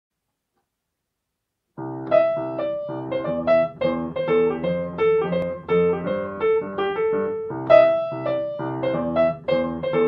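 Upright piano playing the solo introduction to a song, with chords under a melody line. It starts about two seconds in after silence.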